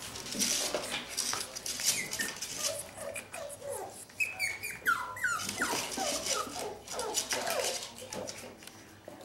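Several eight-week-old puppies whimpering with short, falling whines, mostly from about two seconds in, over scattered clicks and scratches of their claws on a wooden board and tile floor.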